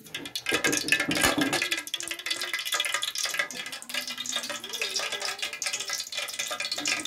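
Cooking fat heating in a pan on a wood-burning stove, giving a dense, irregular crackling and sizzling.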